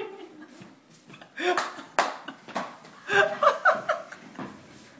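A man laughing hard in quick ha-ha pulses, starting about a second and a half in and loudest near the middle, with a sharp click about two seconds in.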